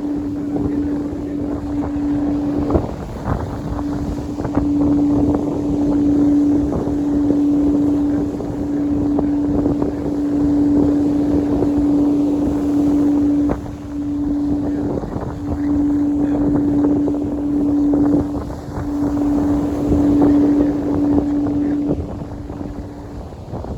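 A single steady pitched tone held for over twenty seconds, breaking off briefly twice and stopping near the end. It sounds over loud wind buffeting the microphone and the wash of the sea.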